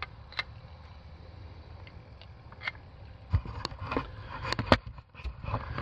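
Steady low rumble with a few isolated clicks, then from about three seconds in a run of irregular knocks and rustles: handling noise as the camera is swung round. The string trimmer is not running.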